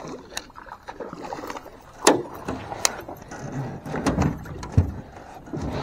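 Scattered knocks and clunks of gear against the hull of a small flat-bottom jon boat, with a sharp click about two seconds in and a cluster of duller thumps about four seconds in.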